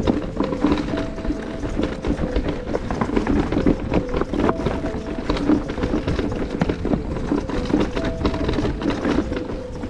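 Background music with short held notes over the rattling and knocks of a mountain bike riding a rough trail, with a low rumble underneath.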